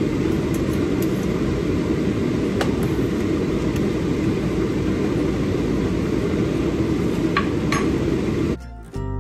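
Steady low rumbling noise with a few faint clicks. It cuts off suddenly near the end, and music begins.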